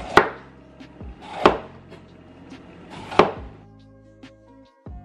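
Large kitchen knife cutting a red bell pepper, three cuts about a second and a half apart, each a short slicing sound ending in a sharp knock. Background music with held tones comes up near the end.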